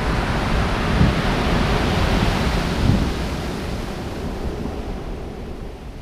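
Surf breaking on a pebble beach: a wave crashes and surges up the shore, swelling twice in the first three seconds and then easing off, with wind buffeting the microphone.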